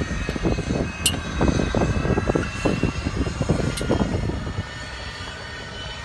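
Wind buffeting the microphone, a low irregular rumble that eases off about three-quarters of the way through, with two faint high ticks.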